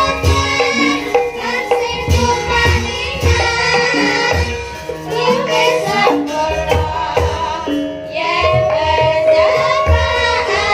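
Young female sinden singing a Javanese song into microphones over gamelan accompaniment, with repeated low kendang hand-drum strokes and steady ringing metallophone tones under the voice.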